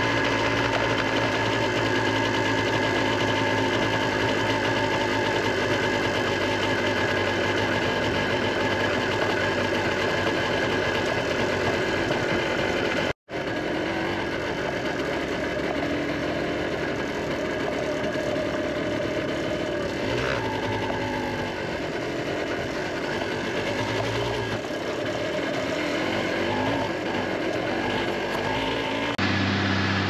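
A vehicle engine running steadily. The sound cuts out for an instant about 13 seconds in and comes back as a less even engine sound.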